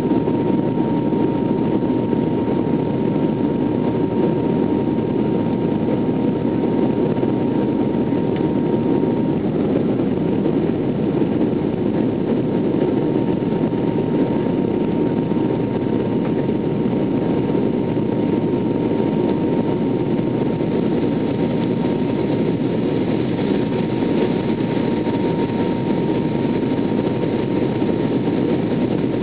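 Steady cabin noise of an airliner descending to land: a constant rush of engine and airflow. A thin high whine runs over it and grows softer about nine seconds in.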